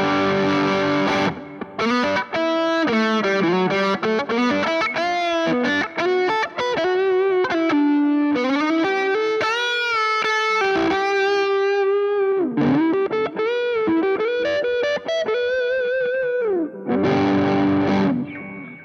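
Sterling Silo3 electric guitar played with a distorted tone. A held chord comes first, then a single-note lead line with string bends and vibrato, then another chord near the end that cuts off suddenly.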